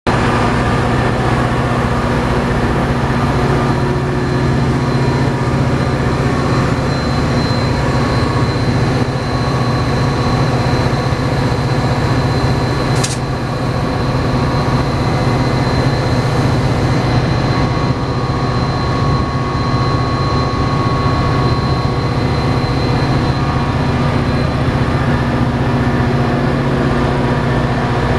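EMD F40PH-series diesel-electric passenger locomotive idling: a steady low diesel drone with a thin high whine over it. One sharp click about halfway through.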